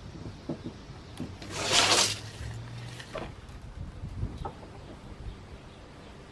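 Light knocks and rustling of hands working in a plywood drawer, with one loud rushing hiss of under a second about two seconds in.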